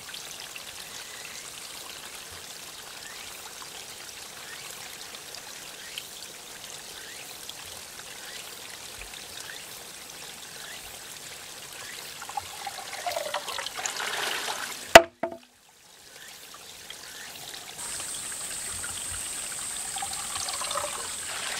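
Bamboo shishi-odoshi: water trickles and pours into the hollow bamboo tube, with a hollow tone that falls in pitch as the tube fills and tips. At about 15 seconds the tube strikes the stone once with a single sharp, loud clack. Afterwards the water trickle resumes, with a steady high-pitched buzz of cicadas.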